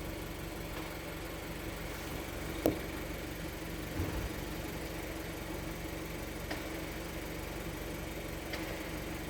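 Seat Leon Mk3's 1.4 TSI turbocharged four-cylinder petrol engine idling steadily. A sharp click comes about two and a half seconds in, a short low thump follows about a second later, and there are a couple of fainter clicks after that.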